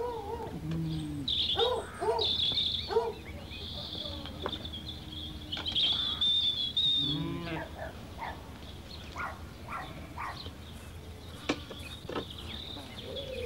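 A pack of hounds baying and yelping, with overlapping cries in the first half and fainter calls later.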